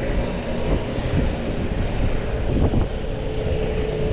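A motor vehicle's engine droning in city traffic, with wind rushing on the microphone of a moving bicycle. A steady engine tone comes in about three seconds in.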